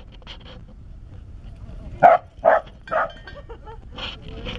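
Young corgi play-barking: three sharp barks in quick succession about two seconds in, with fainter yips near the end.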